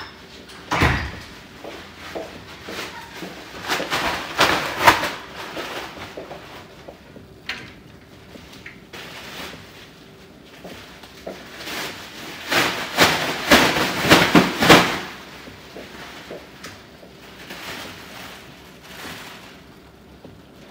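Irregular knocks and clatter, like objects being handled and set down, in two busy spells about four and thirteen seconds in, over a faint steady hum.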